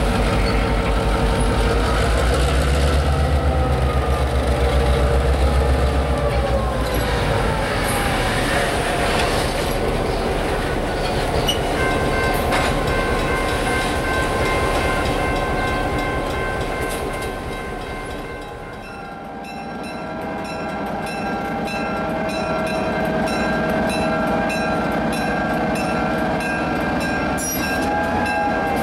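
An EMD GP9 diesel locomotive, with its two-stroke V16 engine, runs under load as it passes pulling a freight train, with a deep pulsing rumble that falls in pitch as it goes by. Steady horn tones sound from about halfway in and carry on as the locomotive approaches a grade crossing.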